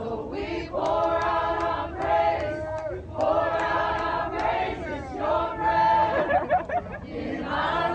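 A large crowd singing together without accompaniment, holding long notes in phrases of a second or two, with one voice sliding up and down over the others about six seconds in.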